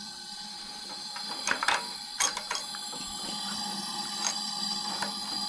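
Metal hand tools clinking and knocking against engine parts, a cluster of sharp clicks about one and a half to two and a half seconds in and another single click later, over a steady high-pitched whine.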